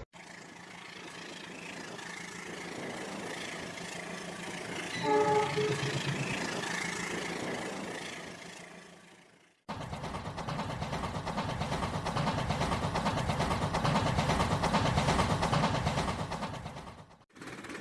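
Train running, with a short horn blast about five seconds in; after an abrupt cut partway through comes a louder stretch of train running noise with a rapid rattle, which stops suddenly near the end.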